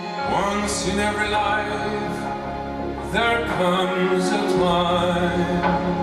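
Recorded song with a singer over instruments, played over Monitor Audio Bronze 5 floor-standing loudspeakers and picked up in the room. The music gets louder about a quarter second in.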